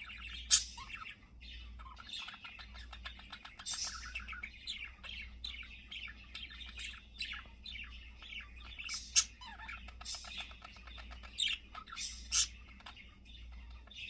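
Male budgerigar singing its warble: a fast, continuous chatter of chirps and clicks, broken by four loud, sharp chirps.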